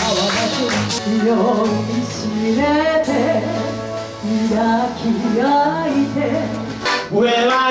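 Live chanson: voices singing into a microphone over acoustic band accompaniment, with an upright double bass holding low notes.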